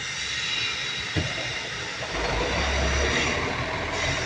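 Caterpillar 966H wheel loader's diesel engine running, heard from inside the cab, with a steady high whine over it. A light knock about a second in, and the low engine note swells and stays a little louder from about two seconds in.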